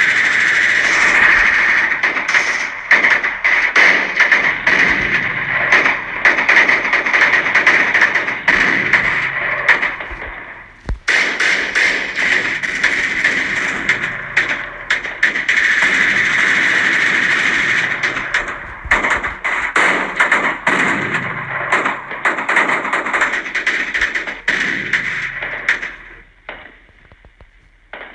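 War sound effect of continuous battle gunfire: a dense run of sharp cracks over a steady noisy din. It dips briefly about ten seconds in and fades out near the end.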